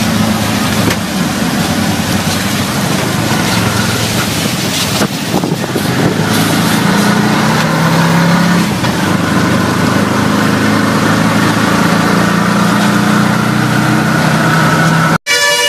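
Tuk-tuk's small engine running under way in traffic, its note shifting with the throttle, with road, wind and rain noise from the wet street heard inside the open cab. The sound cuts out abruptly near the end, and a horn briefly toots just before the end.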